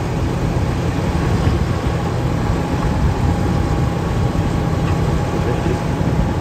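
Steady drone of heavy diesel machinery: a large mobile wood chipper running while a Cat 313F tracked excavator feeds it, with a thin steady whine over the low engine note.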